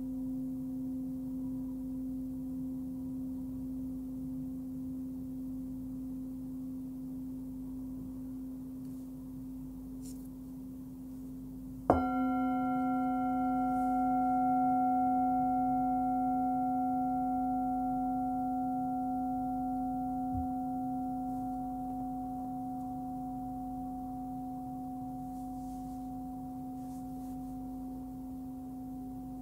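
A 16.4 cm Nepalese singing bowl tuned to about 260 Hz (C) rings with its low note fading. About twelve seconds in it is struck once. It sounds a long, slowly fading ring with several higher overtones over its low fundamental.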